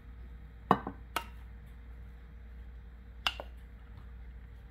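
Wooden spoon knocking against a metal saucepan as cooked rice is scraped out of it: three sharp knocks, about a second and two seconds apart, over a faint steady hum.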